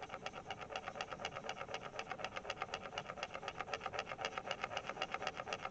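Cotton swab rubbed quickly back and forth over coloured-pencil work on paper, blending the pencil colour. It is a steady, even scrubbing of about eight strokes a second.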